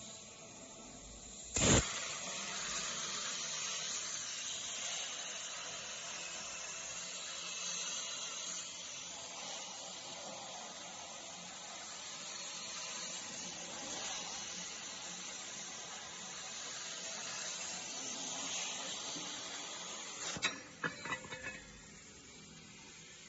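CNC plasma cutting torch cutting metal tube: a sharp crack as the arc strikes about two seconds in, then a steady hiss of the arc and air jet for nearly twenty seconds. The hiss cuts off near the end with a few quick clicks as the arc goes out.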